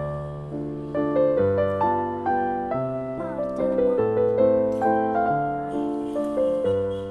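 Background music: a piano-like keyboard melody over chords, each note struck and then fading.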